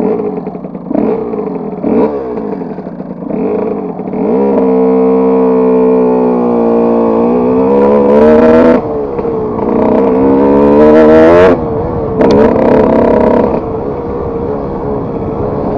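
Kawasaki KX125 single-cylinder two-stroke dirt bike engine being ridden. Short throttle blips come first, then the engine is held at high revs, with two louder full-throttle pulls in the middle, and it eases off near the end.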